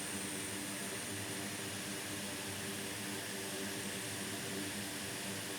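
Steady whir and hiss of workbench equipment with a faint electrical hum underneath, even and unchanging.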